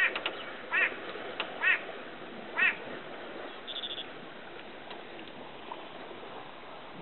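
A bird calling: four short, arched calls about a second apart, then a steady background hiss with a brief high buzz.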